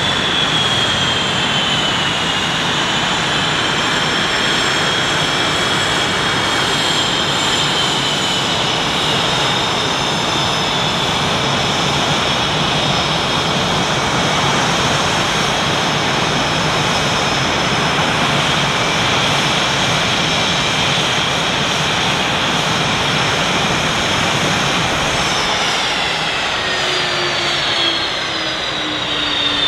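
Blue Angels F/A-18 Hornet jet engines (General Electric F404 turbofans) running steadily with a loud rush and a high-pitched whine that wavers slowly. Over the last few seconds the whine falls in pitch.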